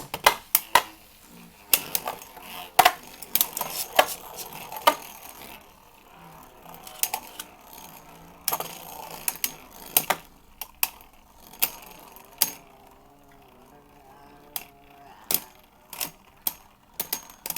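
Beyblade Burst spinning tops battling in a plastic stadium: irregular sharp clicking knocks as they collide with each other and hit the stadium walls.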